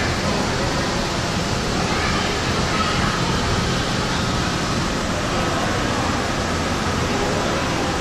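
Steady loud rushing noise of the aquarium hall over the shark tank, like water pouring, with faint voices under it.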